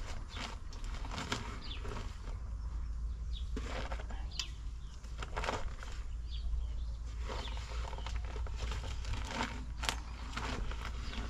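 A shovel and a sack of cement being handled: irregular rustling, scraping and scooping, a few strokes a second at most.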